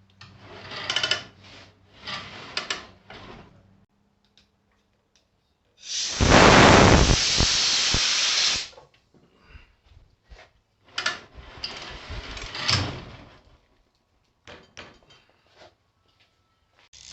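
Workshop work on a mini bike: two spells of uneven scraping and rattling from tools on metal, and near the middle a loud, steady hiss of air or spray lasting about three seconds.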